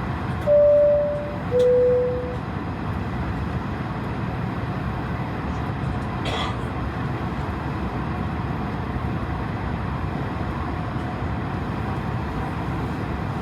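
Airliner cabin chime, two tones, a higher ding then a lower dong, over the steady hum of the Airbus A220-300's parked cabin.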